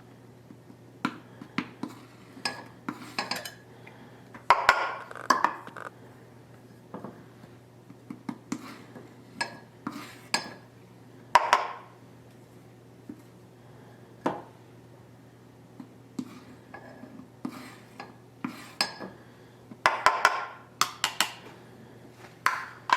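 Kitchen utensils, such as spoons and measuring cups, clinking and tapping against bowls and containers in irregular knocks while dry baking ingredients are handled. The louder clatters come about four to five seconds in, around eleven seconds in, and near twenty seconds in. A faint steady hum runs underneath.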